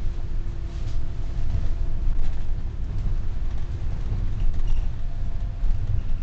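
Volvo Gemini double-decker bus under way, heard from inside on the upper deck: a steady low engine and road rumble with a faint steady hum through it.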